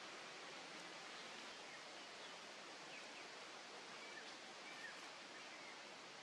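Faint, steady outdoor background hiss, with a few faint, short high chirps scattered through it.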